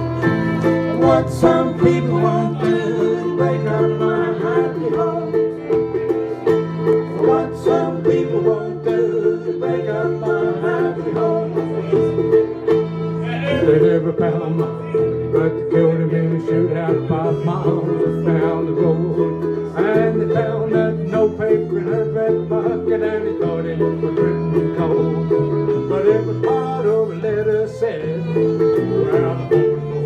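Live acoustic country-style band playing an instrumental break without singing: strummed acoustic guitar, a bowed fiddle and a small plucked string instrument.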